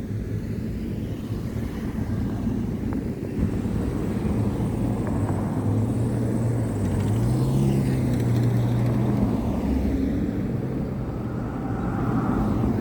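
A motor vehicle engine running past on a city street, its low hum swelling toward the middle and easing off.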